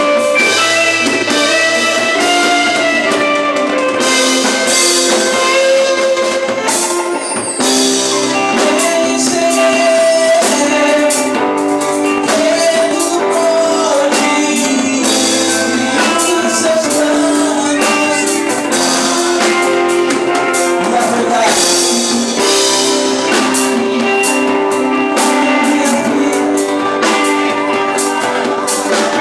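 Live band playing a worship song: guitars and drum kit under a sung melody.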